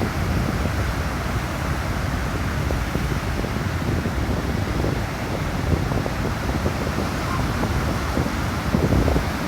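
Ocean surf washing onto a beach, heard through heavy wind buffeting the microphone, with a louder rush about nine seconds in.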